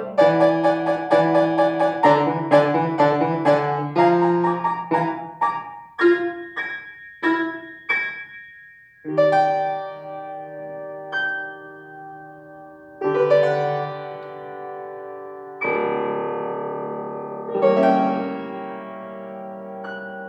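Solo piano playing: quick runs of notes for the first several seconds, then slower chords struck about every two seconds and left to ring and fade.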